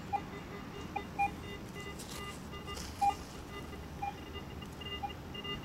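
Metal detector sounding short, irregular beeps as it is run over the dug hole, picking up a metal target still in the ground.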